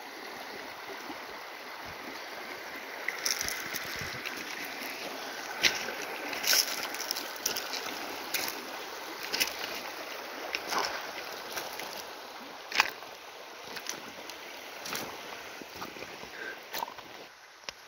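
Shallow river water running steadily, with irregular sharp splashes and knocks about once a second from a few seconds in, as of feet wading through the water over stones.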